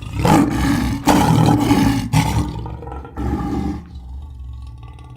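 African lion roaring: several loud, rough roars of about a second each, giving way after about four seconds to a quieter low rumble.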